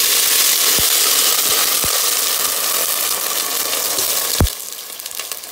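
Water poured in a steady stream into a stainless steel pot of hot coconut oil and whole spices, hissing and sizzling as it hits the oil. The pour stops about four and a half seconds in with a short knock, and faint crackling follows.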